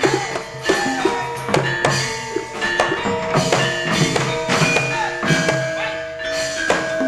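Javanese gamelan accompanying a ketoprak fight scene: struck bronze metallophones ringing over sharp drum and wood-block strokes in a busy, driving rhythm.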